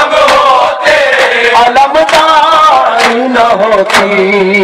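Men's voices chanting a Shia noha (Muharram lament) in drawn-out, melismatic lines, with the mourners' matam, hand-on-chest beating, landing as sharp slaps about once a second.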